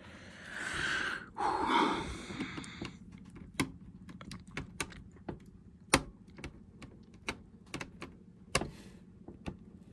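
Small screwdriver clicking and scraping irregularly against tiny screws in a ThinkPad T61 laptop's plastic case, the tip not seating because it is too small. A couple of seconds of rustling come first.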